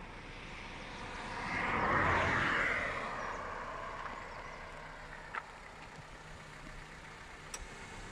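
A vehicle passing on the road: its tyre and engine noise swells and fades about two seconds in, over steady outdoor background noise.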